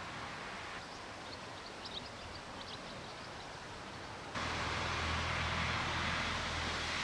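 Steady outdoor background noise and hiss with a few faint, short high chirps early on; about four seconds in the sound changes abruptly, becoming louder with a low steady hum.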